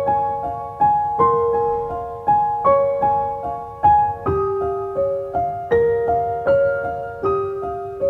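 Background piano music: a gentle melody of single struck notes at an even, unhurried pace.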